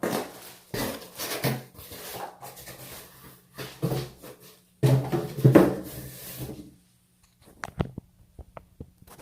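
A cardboard shipping box being opened by hand: irregular rustling and scraping of cardboard and packing material, with a few light sharp clicks near the end.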